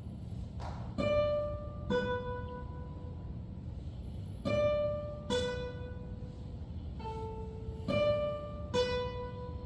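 Classical guitar quartet playing sparse, separate plucked notes, about seven in all, one or two seconds apart, each ringing on over the next, in a piece meant to imitate falling raindrops. A soft short tap comes a little under a second in.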